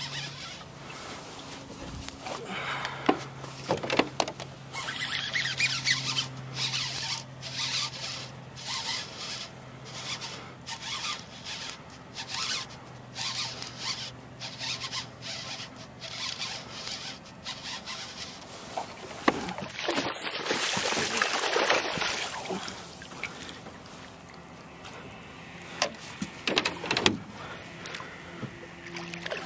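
Fishing reel winding in line with rapid, irregular clicking while a hooked bass is played, then water splashing around twenty seconds in as the fish comes up near the boat.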